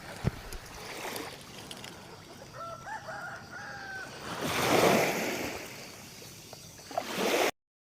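A rooster crowing once, about three seconds in, a call of several segments lasting about a second and a half. A swell of rushing noise follows, loudest around five seconds in, and the sound cuts off abruptly near the end.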